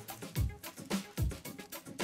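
Background music with a steady beat: kick-drum thumps about every 0.8 seconds and crisp percussion hits between them.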